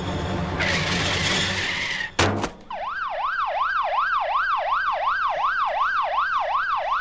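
A van's engine rumbles, then a hissing screech of skidding brakes sets in, and a sharp crash comes just after two seconds. An emergency siren then starts up, wailing rapidly up and down about three times a second.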